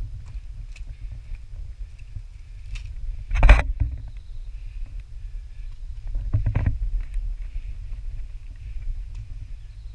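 A hiker's footsteps and scuffs on dirt and rock, over a steady low rumble of handling and wind on the camera microphone. A loud scrape or knock comes about three and a half seconds in, and a quick cluster of scuffs comes around six and a half seconds.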